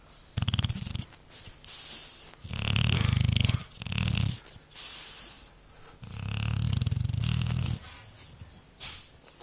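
A sleeping dog snoring: four separate low, buzzing snores with quiet breaths between them. The longest snore comes about six seconds in and lasts nearly two seconds.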